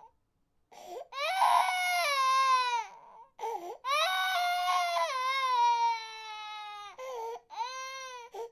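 A 15-month-old baby crying: three long wails that fall in pitch, broken by short breaths, starting about a second in.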